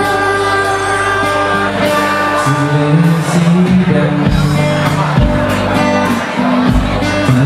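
A song playing: sustained instrumental notes with a singing voice, a bass line coming in partway through, and a steady drum beat from about four seconds in.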